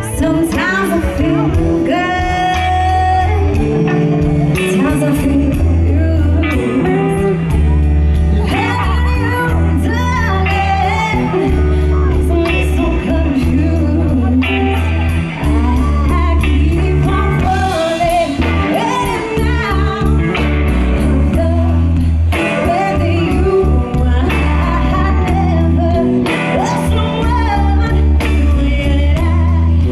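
Live band playing a song: a woman sings lead over electric bass and a drum kit with cymbals, the bass line strong and steady throughout.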